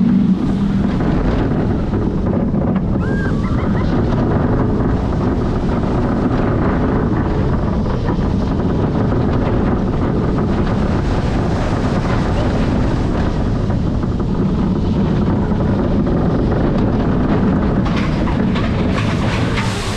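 Steady rush of wind over the microphone mixed with the rumble of a roller coaster train running along its track, heard from on board the Cheetah Hunt coaster.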